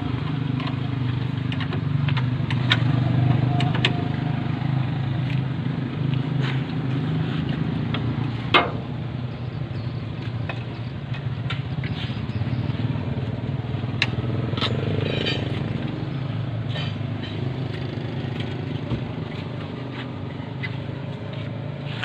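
An engine running steadily, with scattered light clicks and knocks over it and one sharp knock about eight and a half seconds in.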